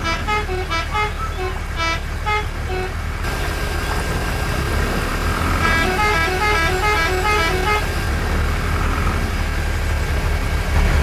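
A steady low vehicle engine rumble, with a musical horn playing a short tune of quick, changing notes twice: once at the start and again about halfway through.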